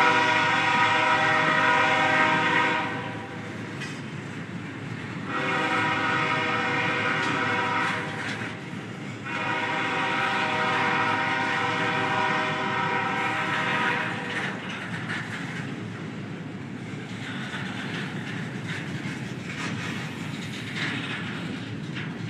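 Freight locomotive air horn sounding three long blasts, the last ending about 14 seconds in, over the steady rumble and wheel clatter of double-stack intermodal well cars rolling past on the rails.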